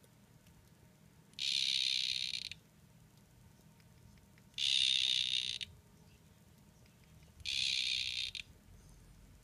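A male poison dart frog calling: three high-pitched buzzing calls, each about a second long, about three seconds apart.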